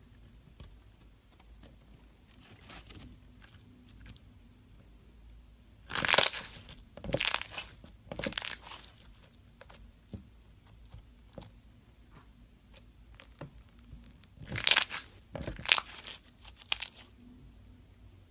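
Slime being squeezed and pressed by hand, giving crackling squishes in two runs of three a few seconds apart, with faint small pops in between.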